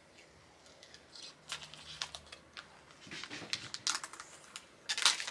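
Protective plastic film being peeled off a clear plastic plaque by hand, giving irregular crinkling crackles that start about a second in and grow louder toward the end.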